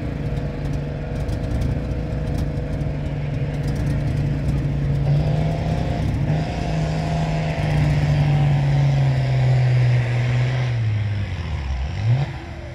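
Military half-track's six-cylinder gasoline engine running just after its first start, a steady even note that rises a little about halfway through, sags lower near the end, then gives one quick rev before the level drops.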